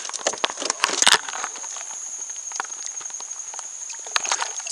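Handling noise: a quick run of sharp clicks and knocks, then a steady rushing hiss with a few more knocks near the end, under a thin steady high-pitched whine.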